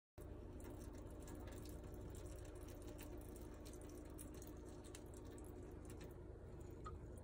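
Faint room tone: a steady low hum and hiss with a few faint ticks, starting abruptly just after the start.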